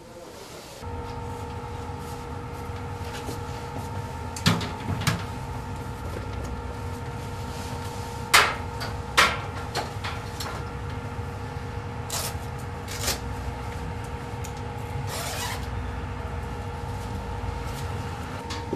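Sheet-metal locker being handled: several sharp knocks and clanks of the door and its contents, with a short rustle of clothing, over a steady hum with a low rumble that starts about a second in.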